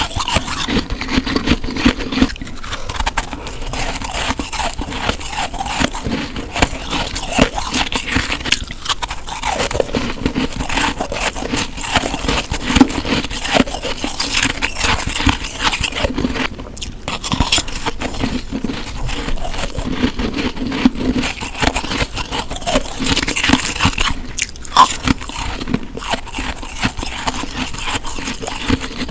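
Close-miked biting and chewing of snow: a continuous run of crisp crunches and crackles.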